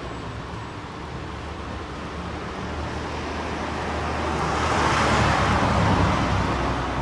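Rushing background noise over a low hum, building to a peak about five seconds in and easing off toward the end.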